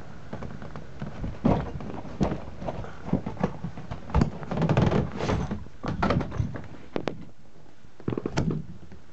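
Cardboard model-kit box being opened and its lid handled: irregular thumps, knocks and rustling of cardboard.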